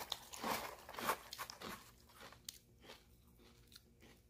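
A mouthful of vanilla Chex cereal being chewed: soft, irregular crunches that thin out after about two seconds.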